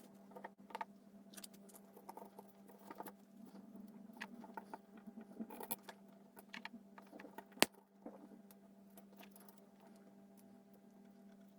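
Scattered small clicks, taps and scratches of hands handling small tools and parts at a workbench, with one sharper click about two-thirds of the way through, over a steady low electrical hum.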